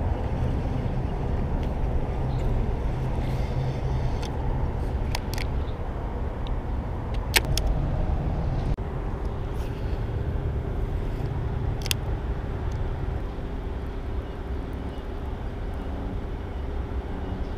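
Steady rumble of highway traffic, with a few sharp clicks; the loudest click comes about seven seconds in.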